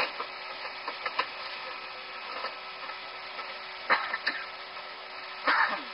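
Steady hiss and a constant low hum in a cockpit voice recording, with scattered clicks and knocks from handling in the cockpit; the loudest come about four seconds in and, as a longer knock, near the end. The engines have not yet been started.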